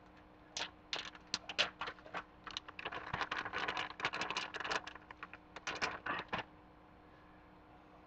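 Plastic pepperoni package crinkling as it is picked up and handled: a rapid, irregular run of crackles that stops about six seconds in.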